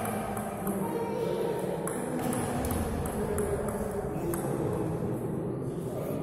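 Table tennis balls clicking off bats and tables in a string of irregular sharp clicks, over a murmur of voices in an echoing sports hall.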